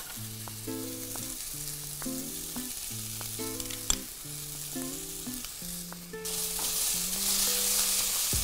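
Beef cheeks and vegetables sizzling in a stainless steel pan as tomato paste goes in. The sizzle grows much louder about six seconds in as the food is stirred and turned with tongs. A single sharp tap comes about four seconds in.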